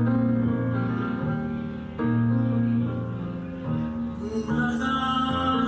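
Instrumental music: held notes, each about a second long, over a low sustained bass note, with a fuller, brighter passage coming in about four seconds in.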